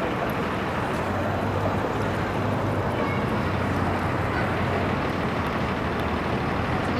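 Steady street traffic noise: a constant rush with a low engine hum from vehicles at a city intersection.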